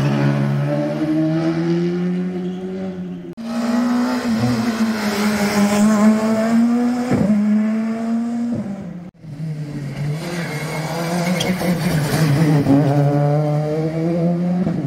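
Rally car engines revving hard on a special stage, the pitch climbing and dropping with gear changes. The sound breaks off sharply twice, about three and nine seconds in, each time giving way to another stretch of engine.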